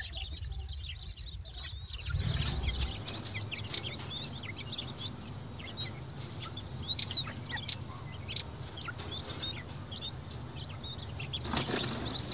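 Four-day-old king quail chicks peeping: a long run of many short, high-pitched chirps. A low steady hum sits underneath from about two seconds in.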